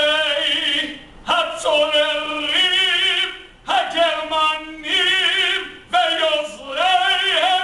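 A man's solo voice singing unaccompanied in a slow chant, long held phrases with a wavering vibrato, broken by brief breaths.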